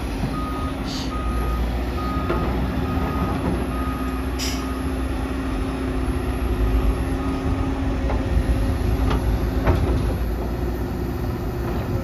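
Reversing alarm on heavy construction machinery beeping about once a second, stopping after about seven seconds, over the steady low rumble of diesel engines. A short air hiss comes about four and a half seconds in.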